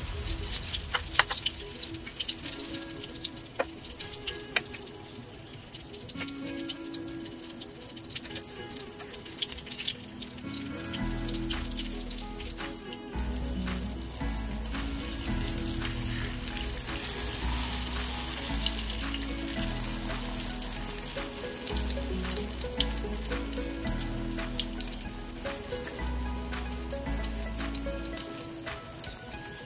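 Eggplant omelette (tortang talong) frying in hot oil in a wok: steady sizzling and crackling. Instrumental background music with a bass line runs underneath, the bass coming in about eleven seconds in.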